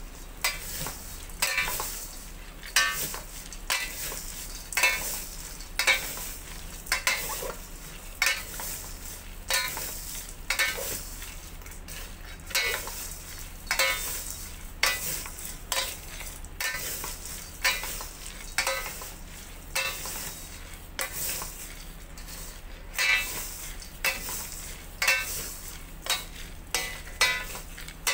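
Baked granola tossed with two wooden spatulas in a stainless steel bowl: dry, crunchy rustling and scraping strokes, about one a second, as oats, nuts and dried cranberries are mixed together.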